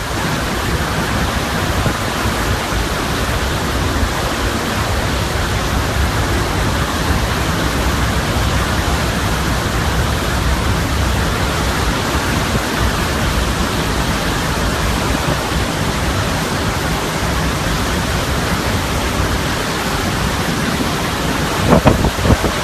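Hurricane wind and heavy rain making a steady, loud, unbroken rush of noise.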